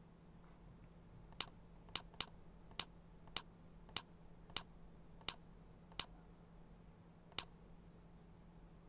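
Ten sharp single clicks at a computer, about one every half second to second, the last one after a longer gap, over a faint steady hum.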